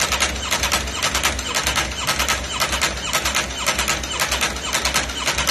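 Ducati Panigale V4 racing superbike's V4 engine idling on its stand, loud with a lumpy, uneven pulse of several beats a second over a steady low throb.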